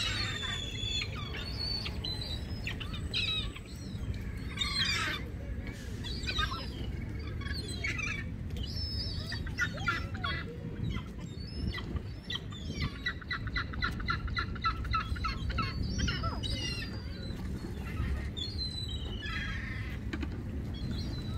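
Gulls calling again and again in short cries, several birds at once, over a steady low background rumble.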